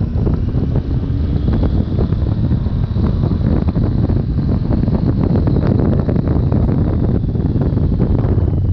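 Wind buffeting the microphone of a camera on a moving Triumph Tiger 800 XCx motorcycle, its inline three-cylinder engine running under the steady rumble of the ride.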